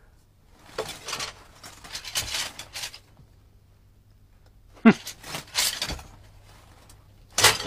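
Bamboo-slip scroll being handled: the slips rustle and clatter in two bursts, once as it is unrolled and again as it is lowered and rolled, with a short rustle near the end.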